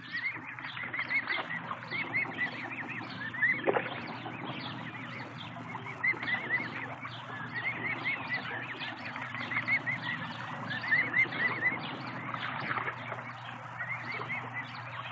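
Mute swan cygnets peeping: short high calls in quick runs of three to six, again and again, over a steady low hum. A short knock about four seconds in.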